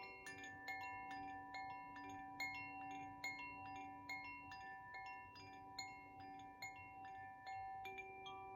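Koshi Ignis chime played by hand: light strikes of its tuned rods, about two or three a second, each leaving several ringing tones that overlap and hang on into the next.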